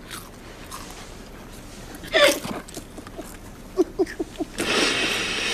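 People sobbing: one crying wail about two seconds in, then a quick run of short gasping sobs, followed near the end by a louder rush of noise.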